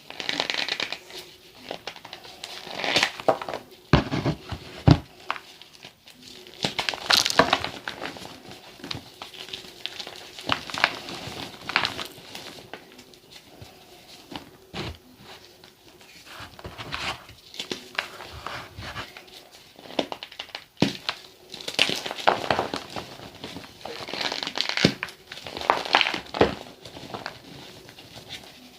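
Gym chalk mixed with sand being crushed and crumbled: an irregular run of sharp crunches with softer crackling and crumbling between them.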